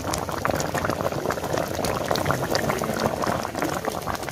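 Thick dry-mango chutney bubbling in a pot on the stove: a steady thick simmer with many small bubbles popping close together.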